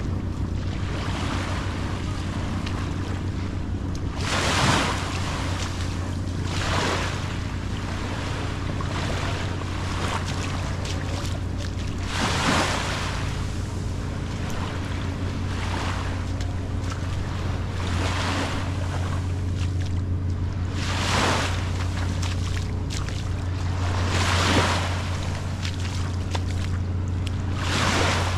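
Small waves washing up onto the sand every few seconds, each wash rising and falling over about a second, against a steady low drone.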